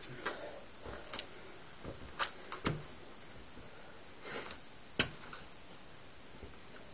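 Handling noise in a quiet small room: a scattering of sharp clicks and taps, the loudest about five seconds in, with a brief rustle just before it.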